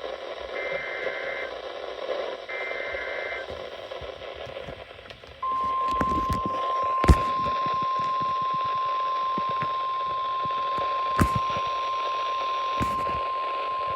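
Weather radio alert signals over receiver hiss: three short raspy bursts of SAME digital alert code, then, after a short gap, the steady single-pitch 1050 Hz warning alarm tone, which holds for about nine seconds. A few sharp static pops break over the tone.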